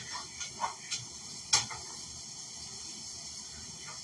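Seasoned chickpeas frying in a frying pan with a steady low sizzle, and a few short knocks and scrapes of a utensil against the pan, the loudest about a second and a half in.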